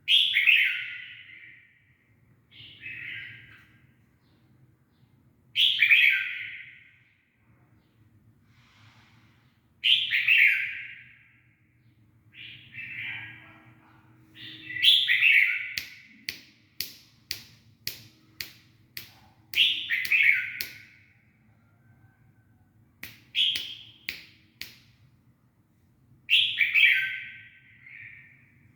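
A young, newly feathered bird giving loud falling calls, one about every four to five seconds. A quick run of sharp clicks comes about halfway through.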